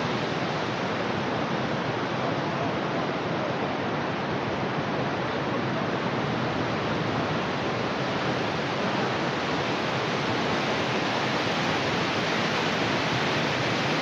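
Steady rushing of a rain-swollen river over boulders, an even hiss with no separate splashes or knocks.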